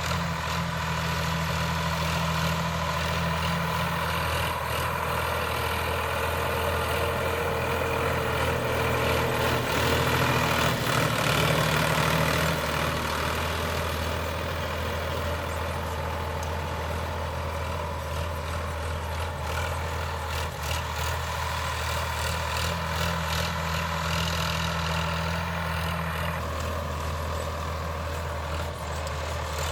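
Sonalika DI 745 III tractor's diesel engine running steadily under load while pulling a plough through dry ground, growing a little louder for a few seconds about a third of the way in, then settling back.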